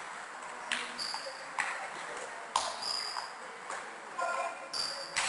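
Table tennis rally: a plastic ball clicking sharply off bats and table, about two hits a second, some with a brief high ring.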